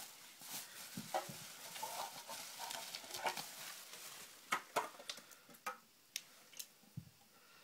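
Packaging being unwrapped by hand: crinkling and rustling for the first few seconds, then a handful of separate sharp clicks and taps as items are handled.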